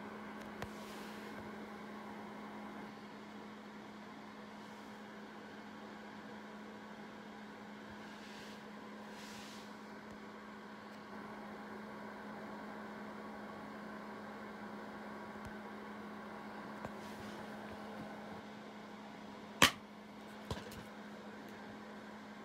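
Steady low electrical hum with faint hiss, then near the end one sharp, loud snap and a smaller click about a second later: a plastic Blu-ray case unlatching and opening.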